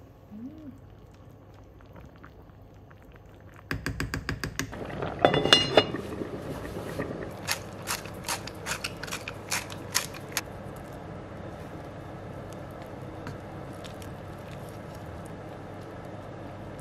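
A pot of creamy salmon soup (lohikeitto) simmering on the stove, with a steady bubbling hiss and scattered pops. About four seconds in comes a rapid run of sharp clicks lasting about a second, followed by a louder clatter of kitchen utensils.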